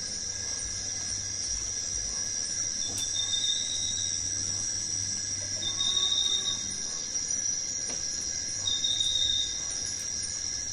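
Forest insects: a steady high-pitched drone, with a shorter call that repeats about every three seconds.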